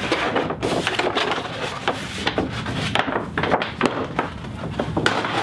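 Stiff dried goatskin rawhide crackling and rustling as it is handled and unrolled, a dense run of sharp crinkly clicks.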